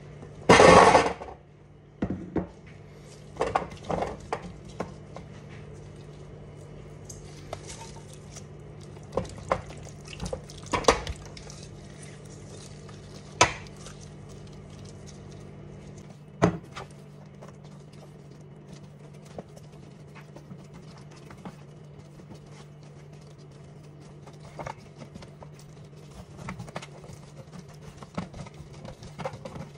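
Scattered knocks and clinks as food and a glass bowl touch a metal roasting pan, with a short loud hiss just after the start and a steady low hum underneath.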